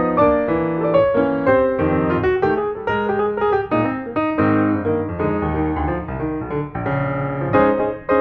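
Background piano music: a steady run of separate notes over chords.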